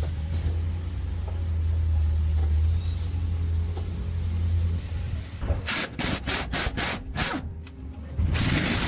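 An engine running at a low, steady idle, then about six quick sharp bursts of noise roughly three a second, and a longer hissing burst near the end.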